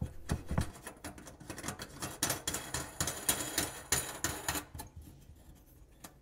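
Brass nut being spun by hand onto the threaded body of a stainless steel sink strainer basket: rapid small clicks and scrapes of metal on metal that die away about four and a half seconds in.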